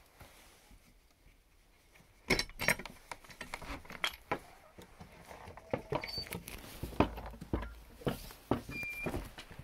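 Handling of a wooden door: clicks and knocks of the latch and boards as it is opened, with rustling and scuffing steps, starting about two seconds in. Two very brief high squeaks come near the end.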